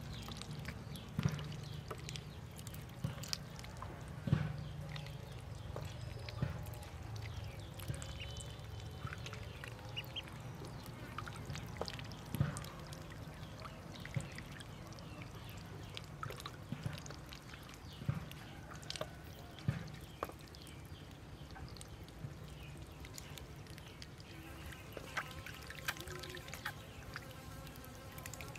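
Ducklings paddling and dabbling in a shallow tub of water: scattered small splashes and bill taps, with occasional faint peeping, over a steady low hum.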